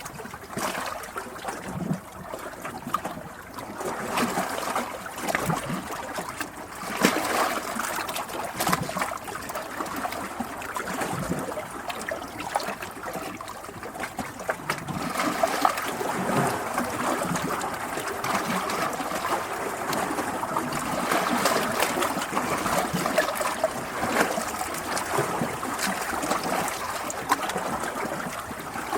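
Running water, a steady babbling flow with many small splashes and crackles throughout.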